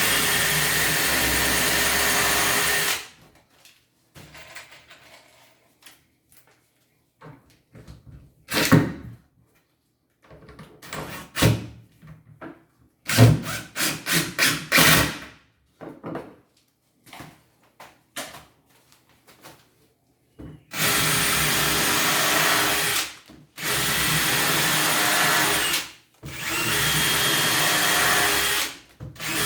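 Electric power drill running at a steady speed in several runs of two to three seconds each: one at the start, then three in a row in the last third. In between come scattered knocks and clatter of parts being handled.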